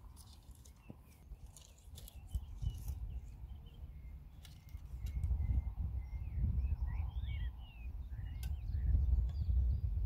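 Wind rumbling on the microphone, growing stronger from about halfway, with small birds chirping throughout and a few sharp clicks in the first few seconds.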